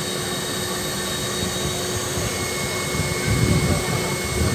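Robotic ice cream vending machine running with a steady whooshing hum, faint steady tones in it. A brief low rumble comes about three and a half seconds in.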